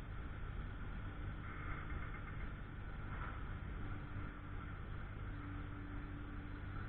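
Steady low engine rumble with a faint hum, as of machinery idling.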